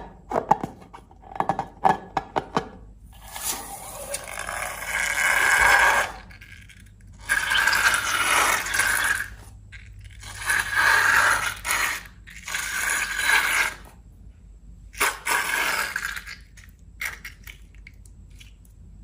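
Balloons and slime being handled by hand: a run of quick small clicks and taps, then five long scraping, rushing sounds of one to three seconds each with short pauses between, and a few scattered clicks near the end.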